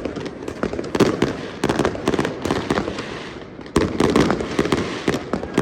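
New Year fireworks going off in a dense barrage of overlapping bangs and crackles. The barrage eases for a moment about two-thirds through, then a loud bang sets it going again.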